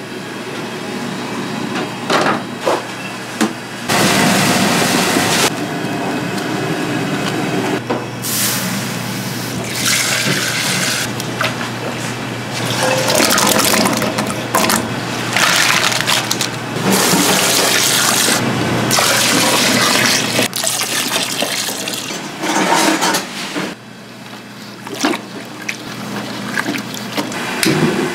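Liquid pouring into a large aluminium stockpot in several long pours, with knocks and clatter of kitchen work between them and a steady low hum that stops about two-thirds of the way through.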